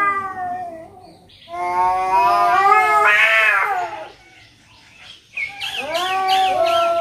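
Two domestic cats caterwauling in a territorial standoff: long, loud, wavering yowls, one rising about a second and a half in and another starting about five seconds in.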